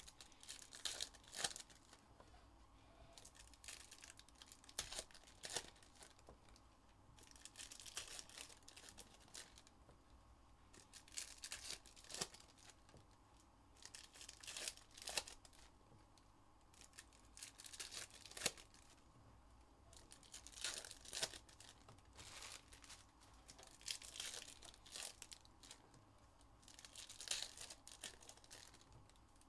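Faint crinkling and tearing of plastic or foil trading-card pack wrappers, coming in short bursts every couple of seconds with sharp crackles, as packs are ripped open and the wrappers crumpled.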